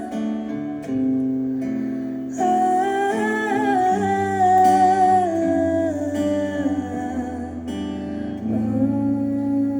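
Acoustic guitar playing slow chords under a woman's voice holding long wordless sung notes that slowly step down in pitch.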